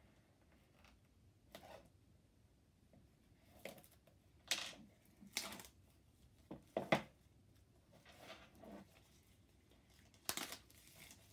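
Thin plastic shrink-wrap being torn and peeled off an AirPods 2 box: a series of about seven short rips and crinkles, the loudest near the middle.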